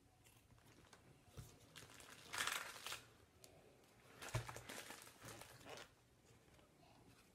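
Pleated polypropylene filter media from a 3M Filtrete 1900 air filter crinkling and rustling as it is handled and cut with scissors, in two bursts, the second opening with a soft thump.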